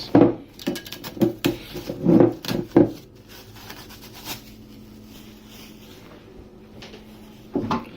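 A run of knocks and clatters over the first three seconds, like a drawer or cupboard being opened and containers handled in a kitchen, then a faint steady hum with one more knock.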